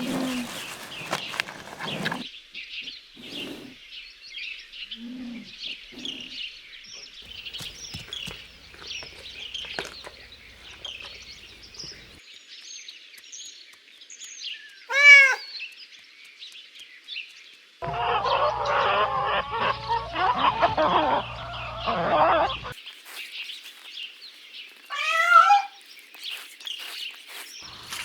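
Farmyard fowl calling over steady small-bird chirping. One loud short call comes about halfway through, a few seconds of busier, louder calling follow around two-thirds of the way in, and another short call comes near the end.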